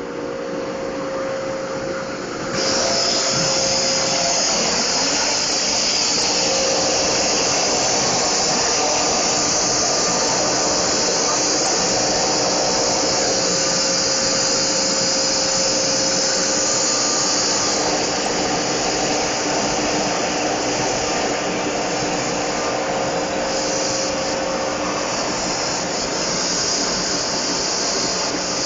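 CNC machine running. A steady hum with faint tones is there from the start, and about two and a half seconds in a loud, steady hissing noise comes on and keeps going.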